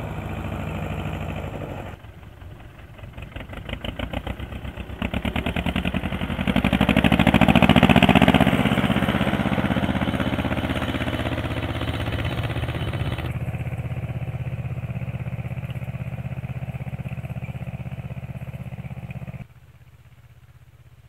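Ursus C-330 tractor's two-cylinder diesel engine running steadily while pulling a seed drill, with an even firing beat. It is heard across several cut-together shots: loudest close by about a third of the way in, and fainter and distant near the end.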